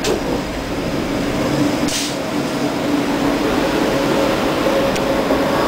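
Electric tram's running hum heard from inside the passenger car, steady with a short hiss about two seconds in, as the tram pulls away from a stop.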